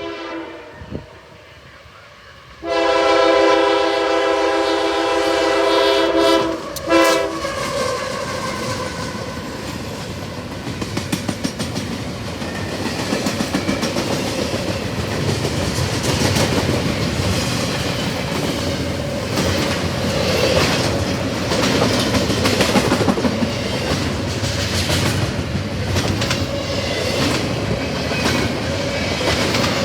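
CSX freight locomotive's multi-chime air horn, which the railfan takes for a Nathan K5HL, sounding faintly at first, then a long loud blast from about three seconds in until about seven seconds in, with a brief break near the end. Then the locomotive and intermodal train pass close with a steady rumble and the clickety-clack of wheels over rail joints.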